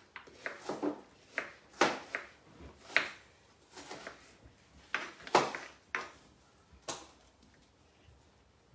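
Kitchen knife chopping an onion on a chopping board: a dozen or so irregular knocks of the blade against the board, falling quiet near the end.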